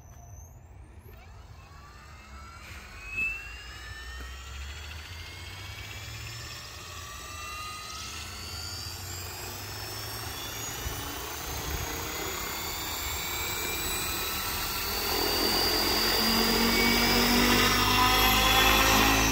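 SAB Goblin RAW electric RC helicopter spooling up: the motor and rotor whine rises steadily in pitch and grows louder as the rotor speeds up. A brief knock about three seconds in.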